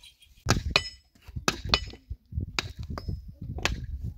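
About seven sharp clinks of hard objects striking, mostly in pairs about a quarter second apart, some leaving a brief high metallic ring.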